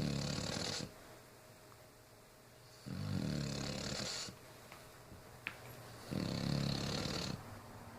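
Regular snoring in sleep: three long snores, each about a second and a half, roughly three seconds apart, with quieter breathing between them.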